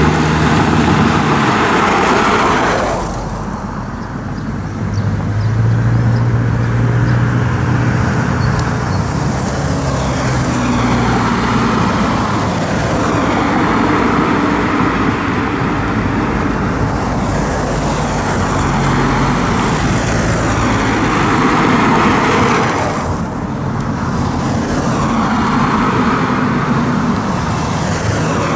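Road traffic: several cars passing one after another, with a Skoda 14Tr17/6M trolleybus approaching. The noise eases briefly about three seconds in and again near the end, between passes.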